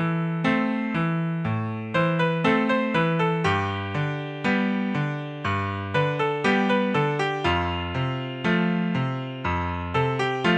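Computer-played (MIDI) piano playing a flowing accompaniment of chords and moving notes, about two to three struck notes a second, each dying away.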